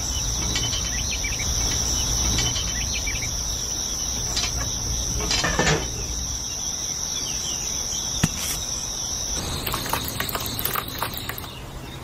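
Small electric motor of a homemade toy concrete mixer running with a steady high-pitched whine over a low hum, with a few light clicks; the whine stops suddenly about nine seconds in.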